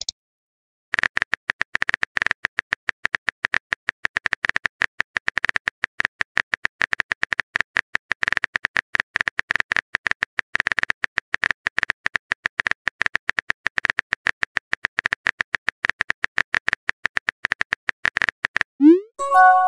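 Keyboard typing sound effect of a chat screen: a fast, uneven run of crisp clicks, several a second, for most of the clip. Near the end the clicks stop and a short rising pop with a few quick chime notes sounds, a message arriving.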